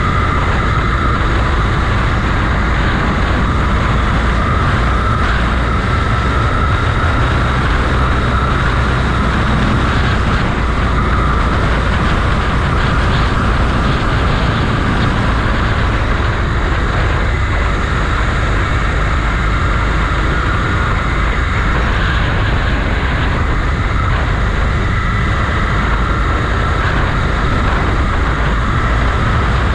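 Motorcycle engine running steadily while riding, with a continuous rush of road and wind noise.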